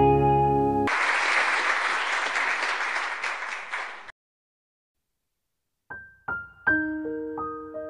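A guitar intro jingle ends on a held chord, then applause fades out over about three seconds. After a two-second silence, electric piano notes begin a gentle melody.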